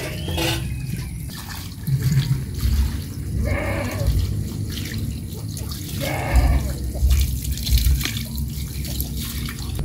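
Water pouring from a cooking pot into a plastic strainer basket, then water splashing and trickling as blanched leafy greens are rinsed by hand under a running hose.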